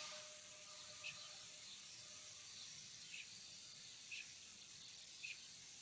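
Near silence: faint open-air ambience with a short, high chirp about once a second.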